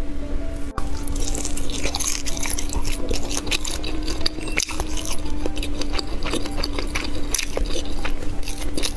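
Close-miked eating of grilled sausage: chewing with many sharp, wet mouth clicks and squishes throughout.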